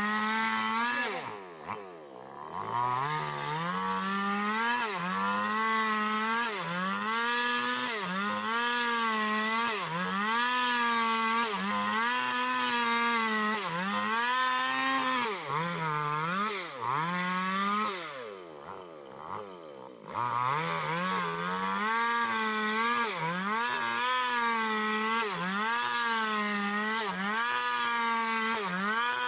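Petrol chainsaw ripping a squared bayur log lengthwise along the grain, its engine pitch rising and sagging about once a second as the chain bites and eases in the wood. Twice, shortly after the start and about two-thirds through, it briefly drops back toward idle before revving up into the cut again.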